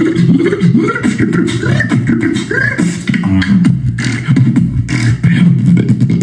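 Human beatboxing: one performer laying down a fast, unbroken stream of sharp mouth-made percussion clicks over pitched, sliding vocal bass lines.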